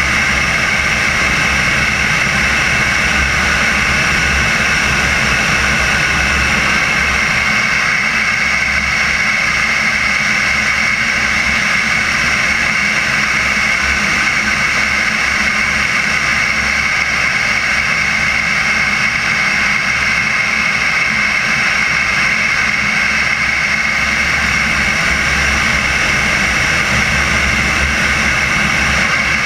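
Turbine engine of a CARF Viper model jet running steadily in flight, a constant whine over rushing air, heard from a camera on the fuselage belly near the tail.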